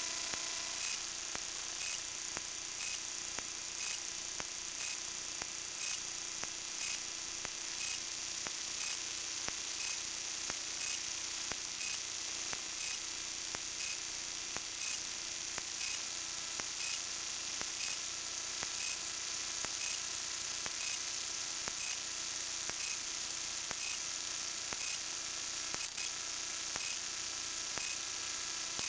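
Steady high hiss with faint ticks about once a second and a faint steady hum: the self-noise of a small camera carried aloft on a kite.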